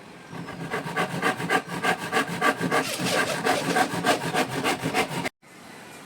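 Fast rhythmic scraping or rasping strokes, about five a second, stopping abruptly about five seconds in.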